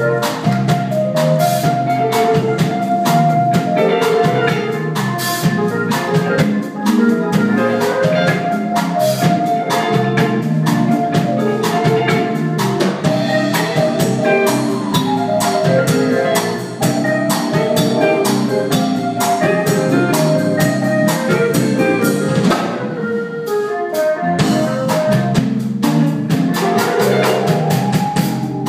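Live blues band jamming on electric guitars, saxophone, keyboard and drum kit, the drums keeping a steady beat under the pitched parts. The high cymbal sound drops away briefly about two-thirds of the way through.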